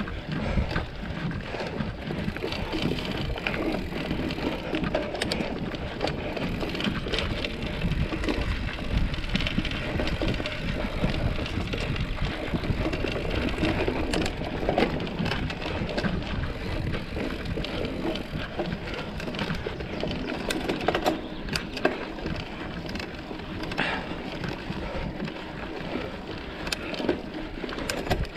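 Mountain bike being ridden over a rough trail: a steady noise of tyres rolling over the ground, broken by many small knocks and rattles from bumps.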